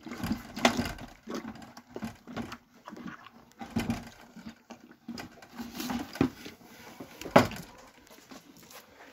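Calves feeding from plastic buckets hung on a wooden pen: irregular knocks and scrapes as they push their muzzles into the buckets, the loudest knock about seven seconds in.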